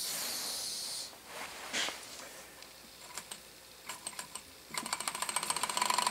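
Model Stirling hot-air engine: a torch lighter hisses for about the first second, a few light clicks follow as the engine is handled, and then, near the end, the engine starts running with a fast, even ticking of its cranks and linkages that grows louder.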